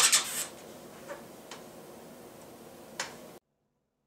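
Hands on an opened laptop: a brief rubbing rustle at the start, a couple of faint clicks, then one sharp click about three seconds in as the laptop is powered up. The sound then cuts off to dead silence.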